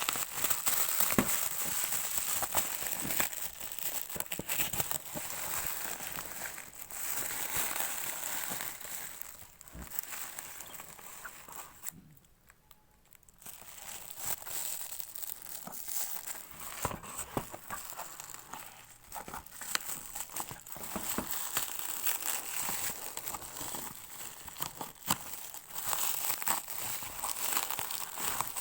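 Plastic and paper packaging crinkling and tearing as a boxed item is unwrapped by hand, with many small crackles, pausing briefly about halfway through.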